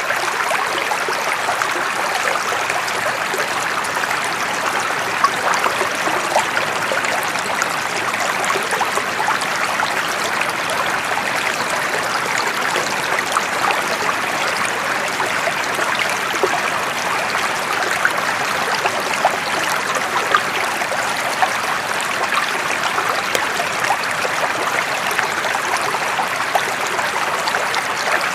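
Running water flowing in a steady, even rush, with many small splashes and trickles scattered through it.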